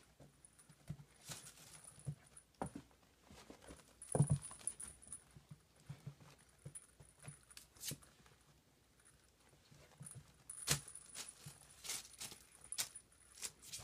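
Ferret pouncing and scrambling on carpet at a wand teaser toy: scattered light taps and clicks with a few soft thumps, the loudest about four seconds in and again near eleven seconds.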